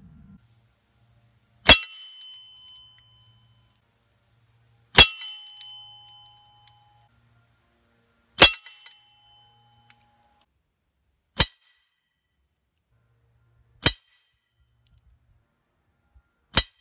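Six air-rifle pellet strikes on a hanging bell target. The first three are loud clangs that ring on for about a second as the bell is hit; the last three are shorter, quieter hits with no ring, pellets striking the target's face plate.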